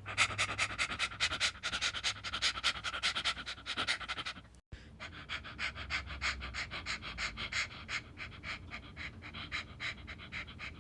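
Dog panting rapidly in quick, even breaths, with a brief break about halfway through after which the panting goes on a little quieter.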